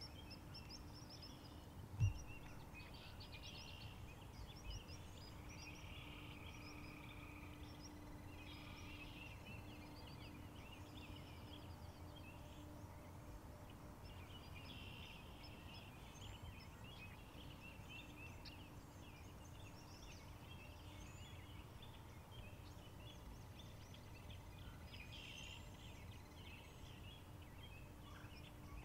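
Birds calling and chirping intermittently over a steady low outdoor rumble with a faint hum, and a single sharp thump about two seconds in.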